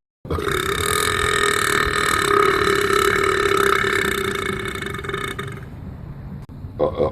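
A long drawn-out burp that holds one pitch for about five seconds and slowly fades, followed near the end by a few short burps.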